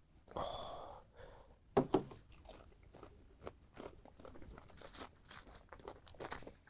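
A person biting and chewing chicken pieces close to the microphone: two sharp crunching bites about two seconds in, then a run of small irregular chewing crunches.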